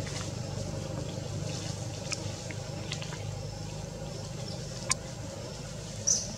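Steady low background hum with a few sharp clicks scattered through it, and one brief high chirp near the end.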